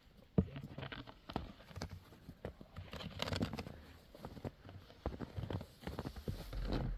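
Irregular knocks and clicks, one after another at no steady pace, with a short stretch of rustling in the middle.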